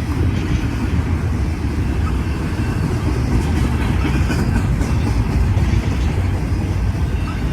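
Union Pacific intermodal freight train's stack cars rolling past close by: a steady low rumble of steel wheels on rail, with a few light clicks about halfway through.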